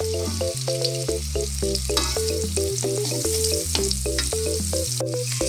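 Margarine sizzling and crackling in a hot wok beside sautéed shallots, garlic and chilies, over background music with a stepping bass line.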